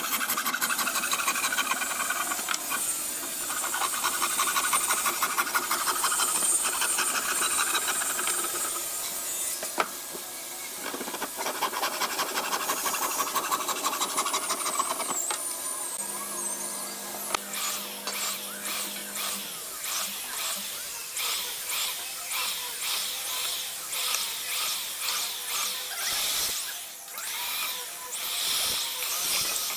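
Wooden frame saw cutting by hand into a hardwood cabinet panel, a rasping stroke repeated about once a second.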